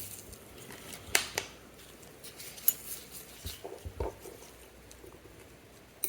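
Light metallic clicks and taps of small watchmaker's tools, such as tweezers, working on the parts of a mechanical watch movement. There are a handful of sharp, separate clicks spread over several seconds.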